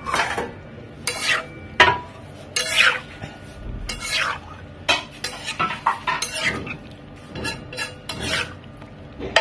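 A spatula scraping and stirring cubes of mutton liver across a large tawa in repeated short strokes, about one or two a second, with a sharp clink about two seconds in. The liver frying in oil gives a sizzle underneath.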